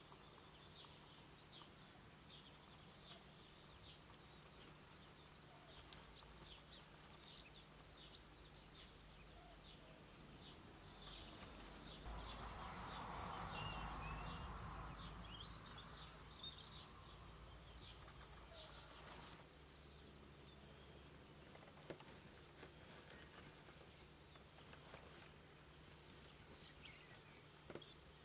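Faint woodland ambience: scattered high, short bird chirps over a low steady hum, with a soft rush of noise that swells and fades in the middle.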